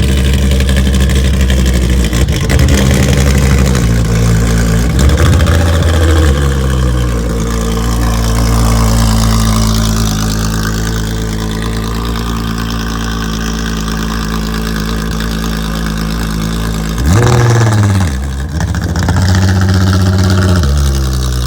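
Supercar engine idling steadily, with a brief rise in revs about five seconds in and a quick sharp rev that rises and falls near the end.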